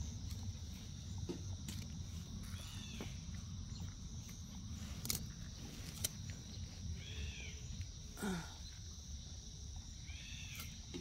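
Steady high chirring of insects, with three short arching calls a few seconds apart and a few sharp clicks over a low rumble.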